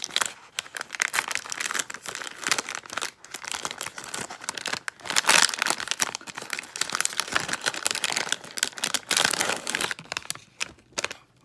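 Plastic snack-cake wrapper crinkling and crackling as it is pulled open by hand, in irregular bursts that are loudest about halfway through. Near the end the clear plastic tray inside crackles as it comes out.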